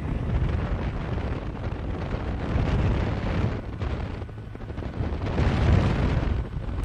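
Wind buffeting the microphone from a moving car, a heavy rushing noise that swells and eases in gusts.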